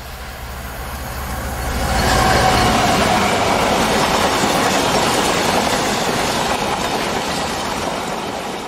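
A Class 66 diesel locomotive's two-stroke V12 engine drones as it approaches, then about two seconds in the passing freight wagons take over as a loud rush of wheels on rail that slowly eases toward the end.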